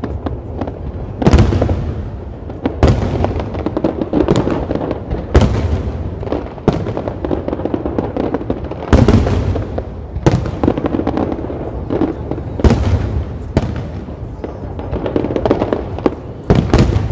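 Fireworks display: aerial shells bursting one after another, a loud bang every second or two over a continuous rumble.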